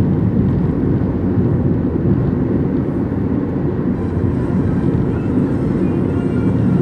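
Car driving along a highway: a steady low rumble of road and engine noise.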